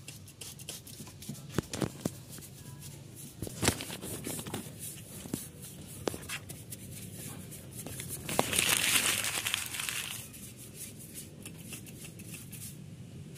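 Scrubbing and handling of a degreased aluminium engine part, with scattered clicks and knocks. A little past the middle, a spray hisses loudly for about two seconds, then stops.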